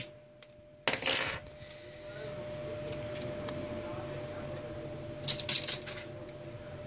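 A small metal pry tool clattering down onto the workbench with a brief metallic ring about a second in. Near the end comes a quick run of light clicks and taps as the phone's plastic midframe is handled, over a faint steady hum.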